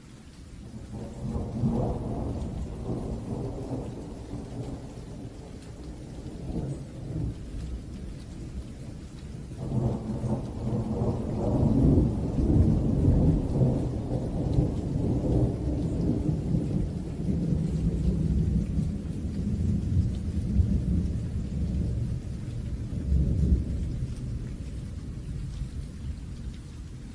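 Thunderstorm: steady rain falling, with two long rolls of thunder. The first rumbles up about a second in and dies away; the second, louder one breaks in suddenly about ten seconds in and rolls on for most of the rest, slowly fading.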